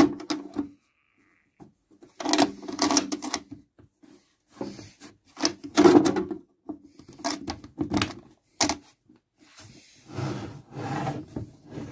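The metal carrying case and lid of a 1945 Hermes Baby portable typewriter being handled and closed up: several bursts of knocks, scrapes and clicks, with short pauses between them.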